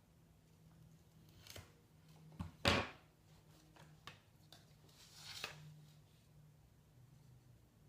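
Hand cutters trimming thin wooden sticks: a few light clicks, then one sharp snip a little under three seconds in, and a softer scraping rustle at about five seconds.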